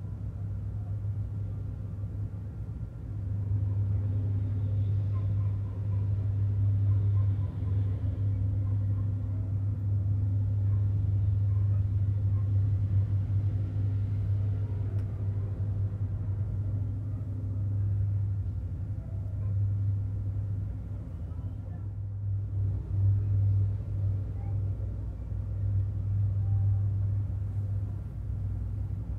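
Low, steady drone of a passing ship's diesel engines, growing louder about three seconds in.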